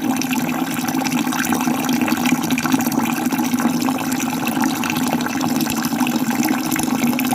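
Falling water splashing steadily, an even rush with a strong low hum-like band that does not change.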